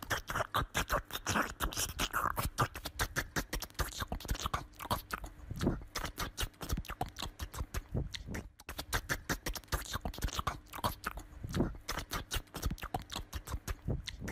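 Small dog's paws and claws rapidly tapping and scratching against a wooden door as it hops on its hind legs, many quick clicks a second with a brief pause midway.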